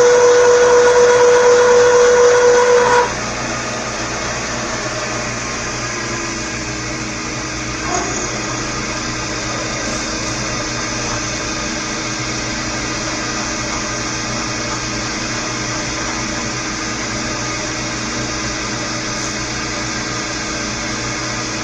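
Older knee milling machine running while a Woodruff keyseat cutter works into a steel shaft. A steady, loud whine with overtones cuts off sharply about three seconds in, leaving the machine's steady running noise.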